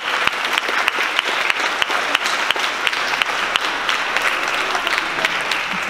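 Audience of many people applauding steadily, a dense patter of hand claps.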